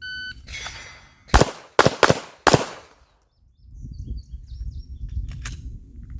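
Shot-timer start beep, then four handgun shots: one, a quick pair, and one more, the last about two and a half seconds after the beep, a timed draw-and-fire string from concealment.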